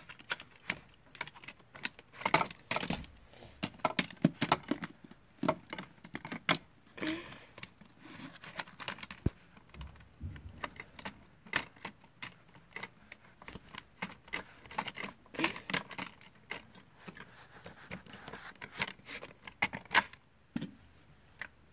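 Plastic toy truck being pushed by hand through a plastic Hot Wheels playset: irregular small clicks and clacks of plastic on plastic, in clusters.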